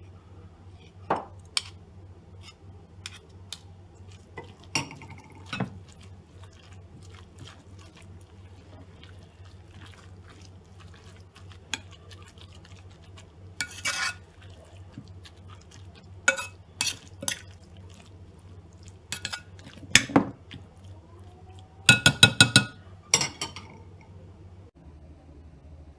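Kitchen utensils and glassware clinking and knocking: a spoon tapping and scraping against a glass or dish in scattered strikes, with a quick run of rapid clinks about three-quarters of the way through. A low steady hum sits underneath.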